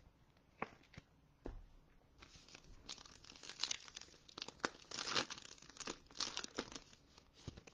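Foil wrapper of a Phoenix football trading-card pack being torn open and crinkled by hand: a few light taps, then from about two seconds in a dense run of sharp crackles that lasts about five seconds.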